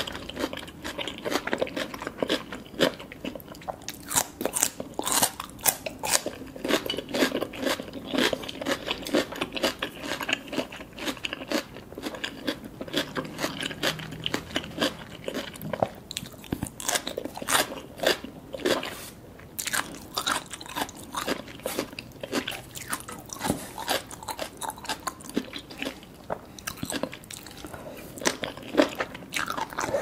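Close-miked crunching and chewing of crisp raw cucumber, a rapid run of sharp crunches throughout.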